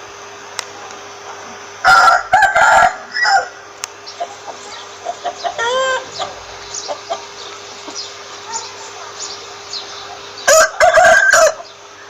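Rooster crowing twice, about two seconds in and again near the end, with hens clucking between the crows.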